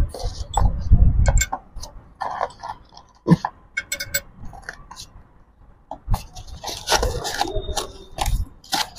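A small cardboard box being handled and rummaged through by hand, with irregular crinkling, scraping and light clicks of packaging, and a few dull bumps near the start.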